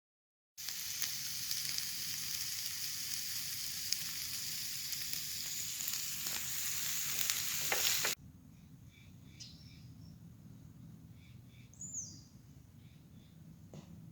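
A loud, steady hiss that stops abruptly about eight seconds in. It gives way to quiet outdoor background with a few short bird chirps.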